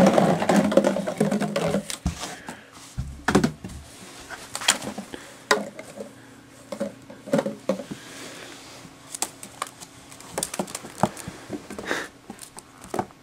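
Empty plastic water bottles being knocked and pushed about by a ferret: scattered, irregular hollow plastic clicks and knocks, over a faint steady low hum. The first two seconds hold a louder rustling from close handling.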